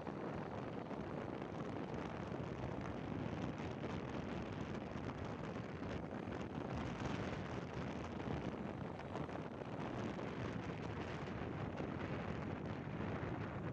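Steady wind rushing over the microphone, mixed with the tyre and road noise of a vehicle driving along at a constant speed.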